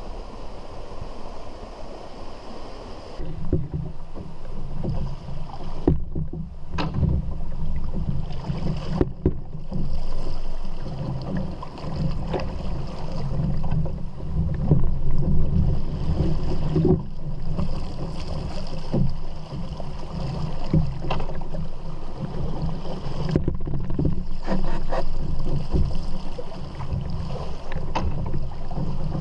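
Rushing river water and a steady low rumble around a canoe, with a sharp knock every two to three seconds as the canoe setting pole is planted against the rocky riverbed.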